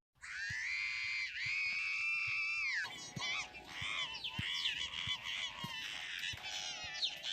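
A cartoon character's high-pitched screaming, run through a layered pitch-shifted 'G Major' voice effect. It opens with one long held cry of nearly three seconds, then breaks into a run of wavering, rising and falling shrieks.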